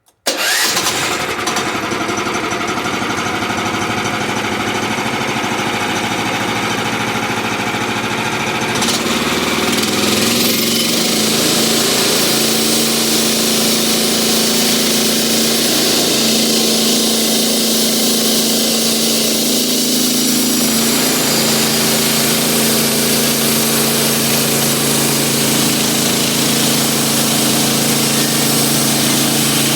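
Norwood portable bandsaw sawmill running, starting abruptly. About nine seconds in, its engine comes up to a higher, steadier speed with more hiss and then holds there.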